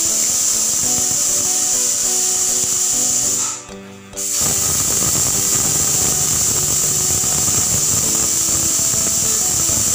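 Pressure cooker whistling: a loud, steady hiss of steam jetting out past the weight valve on the lid, a sign that the cooker is at full pressure. About three and a half seconds in, the hiss cuts off abruptly, then starts again a moment later with the next whistle.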